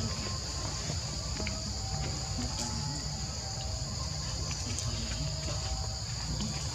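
Insects droning steadily in a high, even, two-toned chorus, over a low rumble.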